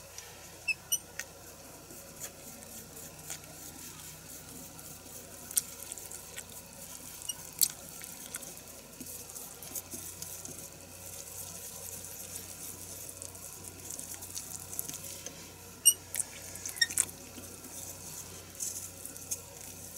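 Chopsticks stirring flour and water into a batter in a bowl: a soft, wet squishing, with a sharp click now and then as the chopsticks hit the bowl.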